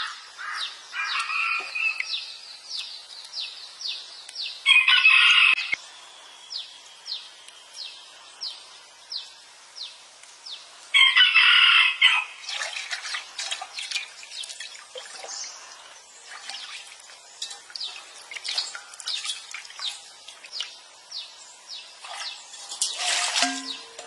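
A rooster crowing twice, each crow about a second long, over a steady run of short, high, falling chirps at about two a second. A louder burst follows near the end.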